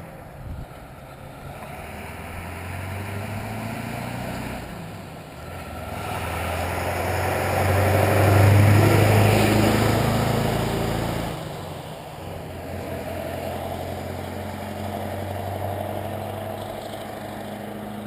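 Ford diesel truck with a manual transmission driving past on the road. Its engine grows louder over several seconds, is loudest about halfway through, then drops off, and a quieter steady engine hum carries on afterward.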